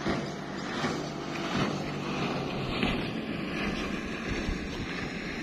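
Small motorboat's engine running at speed, a steady drone, with wind buffeting the microphone.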